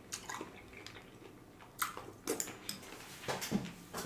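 Close-miked eating sounds from a spoonful of berry "nature cereal": a few short, wet clicks and squishes from spoon, fruit and mouth.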